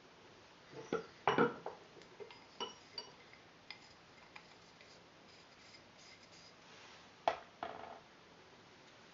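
Metal parts of a gas-blowback airsoft AK being handled: a cluster of sharp clicks and short ringing clinks, a few lighter ticks, then two sharp clicks about half a second apart near the end.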